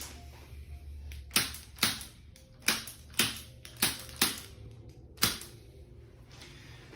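A series of about seven sharp clicks, spaced unevenly over about four seconds.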